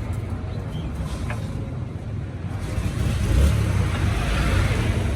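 A motor vehicle's engine running with a steady low rumble, growing louder about three seconds in.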